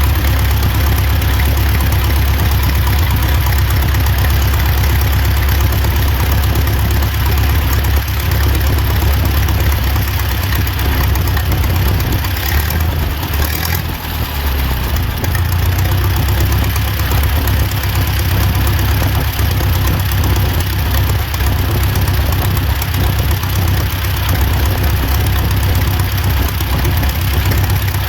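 Allis-Chalmers 6-12 tractor's four-cylinder engine running steadily at idle, its magneto freshly timed, with a brief dip in loudness about halfway through.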